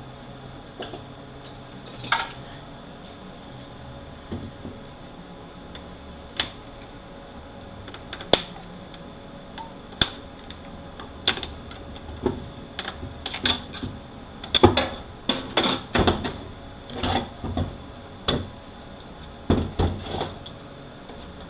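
Metal automatic-transmission parts clinking and knocking as a clutch drum and its pieces are handled and picked at with a hand tool. Scattered sharp clicks, coming much thicker over the last several seconds.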